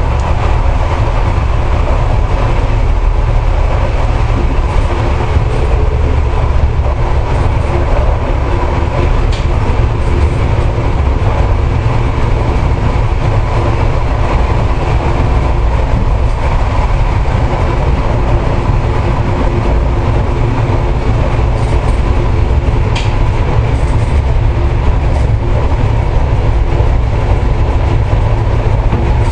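Inside the driver's cab of an SNCB AM 78 electric multiple unit running at speed: a steady heavy rumble of wheels on rail with a steady hum from the drive, and now and then a brief click from the track.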